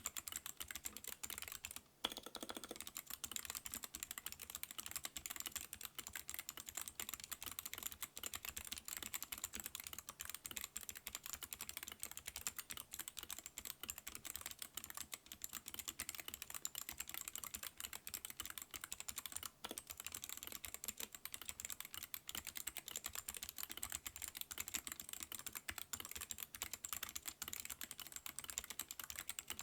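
Steady typing on a Hansung TFG ART keyboard with Outemu low-profile clicky switches and PBT pudding keycaps: a dense stream of sharp key clicks. It breaks off briefly about two seconds in, followed by one louder clack.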